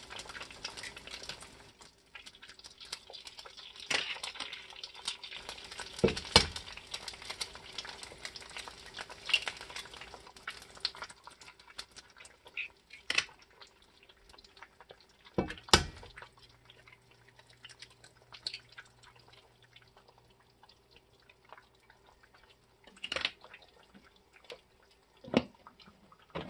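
Eggs are cracked one after another and dropped into hot oil in a cast iron skillet, with a sharp knock every few seconds over a low sizzle of frying.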